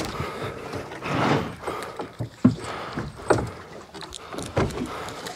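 Handling noise as a small whiting and a dogfish are unhooked from a baited feather rig: a scatter of irregular knocks and rustles from the fish, rig and boat fittings.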